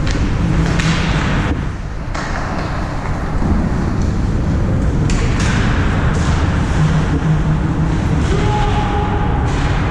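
Rink noise during an ice hockey game, with a steady din broken by several sharp knocks and thuds, typical of pucks, sticks and players striking the boards.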